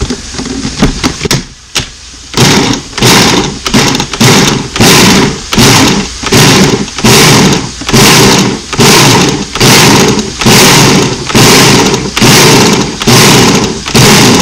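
Ninja kitchen chopper's motor pulsed in short, evenly spaced bursts, about one and a half a second, chopping cauliflower florets into rice. It starts about two seconds in, after a few clicks and knocks.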